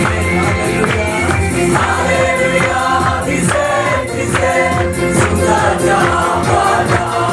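A large crowd singing a praise song together in unison over music with a steady beat.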